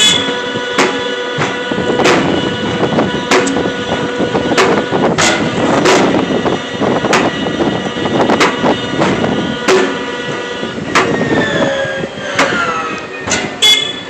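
Electric pallet jack driving across a concrete warehouse floor: a steady motor whine under a noisy rumble, with sharp knocks and rattles about once a second. Wavering, gliding tones come in near the end.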